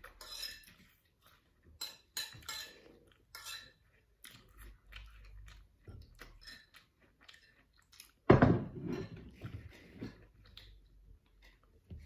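Close-up chewing with the clink and scrape of a spoon and fork on ceramic plates as two people eat, with one louder knock about eight seconds in.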